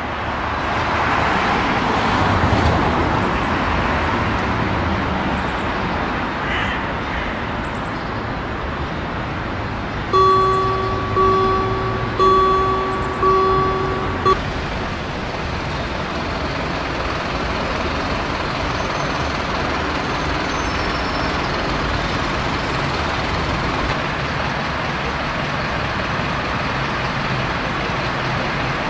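Steady drone of an idling diesel shunting locomotive. About a third of the way in, four pitched beeps sound about a second apart.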